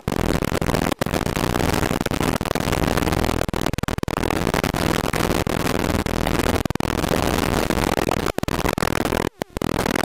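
Single-engine propeller airplane's engine and propeller running steadily in flight, heard as a loud, even drone from inside the cabin. A few very brief dropouts break the sound, one about nine seconds in.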